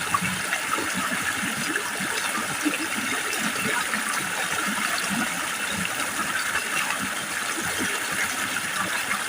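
Steady rushing of running water, an even hiss with fine scattered ticks and no change in level.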